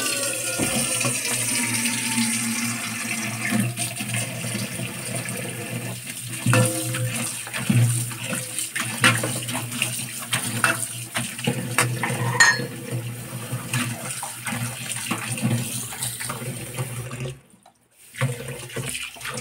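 Kitchen tap running into a stainless steel bowl while hands swish and rub peeled shajikan pieces in the water, with scattered knocks and clinks. The sound cuts out briefly near the end, then the water comes back.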